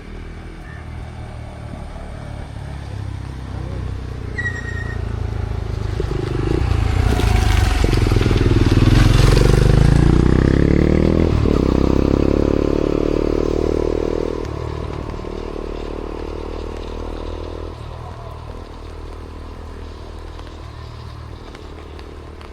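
A motor vehicle's engine approaching and passing close by. It is loudest about ten seconds in, its note drops in pitch as it goes past, and then it fades away.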